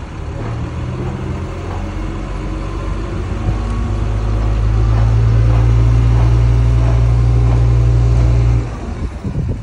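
Heavy diesel engine running with a steady low drone. It grows louder about four seconds in, holds, then drops off abruptly near the end.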